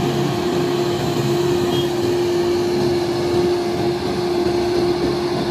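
Grove GMK6300L multi-axle all-terrain crane driving along a road, its diesel engine giving a steady drone with one constant humming pitch over road noise.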